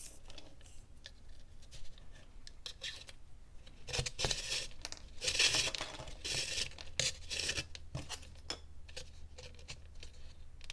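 Calf leather lace being pulled through a drilled hole in a dried gourd's rim, rubbing in a series of short rasping swishes, several of them close together midway, with small clicks of the lace and fingers against the hollow shell.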